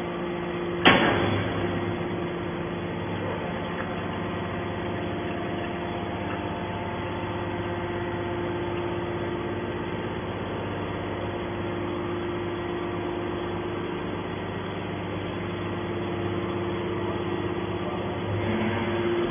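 Steady hum of a running aluminium-can baler's machinery, holding several steady tones, with one sharp knock about a second in.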